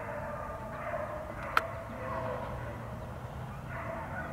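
A pack of deer hounds baying faintly on a chase, their voices blending into a wavering drone, with one sharp click about a second and a half in.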